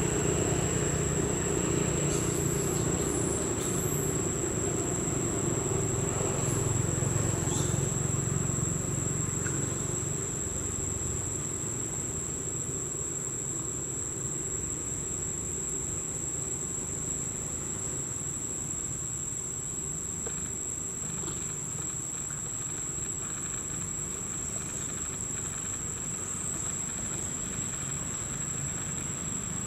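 Steady, high-pitched insect drone that holds one unbroken tone throughout. Under it a low rumble eases off after about ten seconds, and a few brief high chirps come two to four seconds in.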